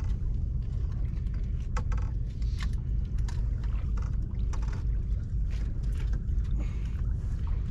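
Wind rumbling on the microphone, with scattered small knocks and rattles as a landing net holding a ray is hooked onto a hand-held scale and lifted.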